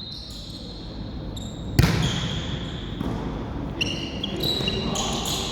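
A volleyball struck hard in a gym hall, one sharp hit about two seconds in, followed by lighter knocks and a few short squeaks.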